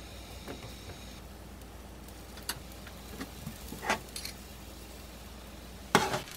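Flour-dusted eggplant slices frying gently in oil over low heat: a faint steady sizzle over a low hum, with a few light clicks of tongs against the pan and a louder clatter near the end.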